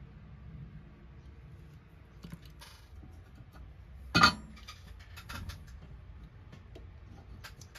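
Small clicks and knocks from a die-cast toy's metal base and wheels being handled, with one sharp metallic clink about four seconds in that rings briefly.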